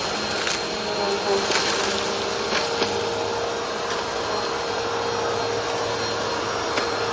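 Vacuum cleaner running steadily over a rug, its motor giving a steady hum, with sharp clicks and rattles now and then as crushed food crumbs are sucked up.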